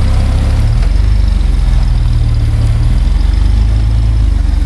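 Off-road vehicle's engine running low and loud, its revs rising about a second in and easing back about three seconds in.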